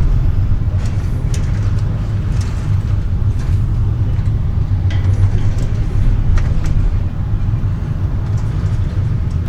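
Steady low rumble of a ferry's hull and engines in a rough, heavy sea, with scattered light knocks and rattles.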